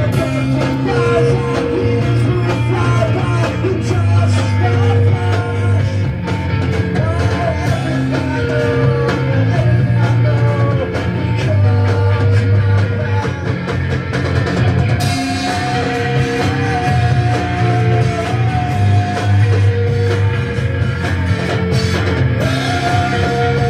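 A rock band playing an instrumental jam, with guitar over bass and drums. About halfway through the sound brightens and a long held high note comes in, returning near the end.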